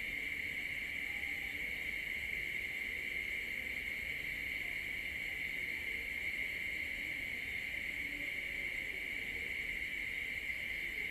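Steady, unbroken chorus of night crickets, a continuous high trill.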